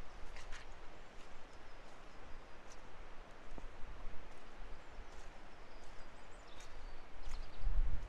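Footsteps on a muddy woodland path over a steady outdoor hiss, with a few short, high bird chirps. A low rumble builds near the end.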